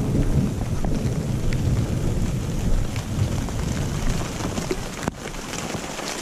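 Steady rain falling, a dense hiss with scattered drop ticks, over a low rumble that eases about five seconds in.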